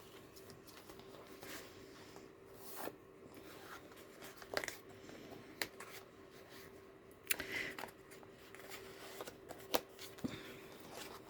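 Pages of a handmade junk journal made of thin card being turned and handled, giving soft rustles and a few sharp light taps and flicks, loudest about halfway through and again near the end. A faint steady hum runs underneath.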